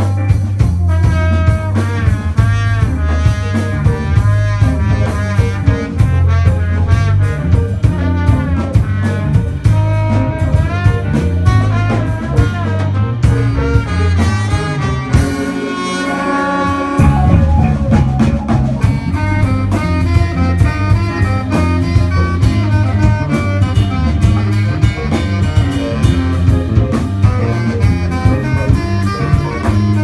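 Live band playing instrumental music: saxophone, trombone and trumpet play melodic lines over drum kit, electric bass, guitar and synthesizer. About fifteen seconds in, the bass and drums drop out for a couple of seconds under one held high note, then the full band comes back in.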